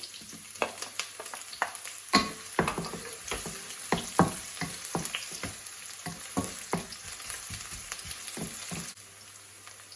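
Sliced red onion and ginger sizzling in hot oil while being stirred, a utensil knocking and scraping against the pan at an uneven pace. The stirring stops about nine seconds in and the sizzle goes on.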